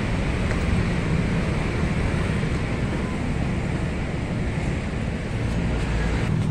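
Stihl RM 248 push mower's single-cylinder four-stroke engine running steadily.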